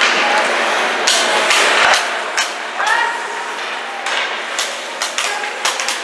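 Youth ice hockey game in a rink: a string of sharp knocks and clacks, like sticks and puck hitting, over a noisy hiss, with voices of players and spectators calling out.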